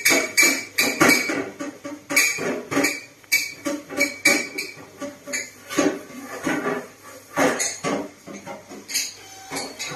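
Dishes and cutlery clattering and clinking in a kitchen sink as they are handled, a quick, irregular run of knocks and clinks.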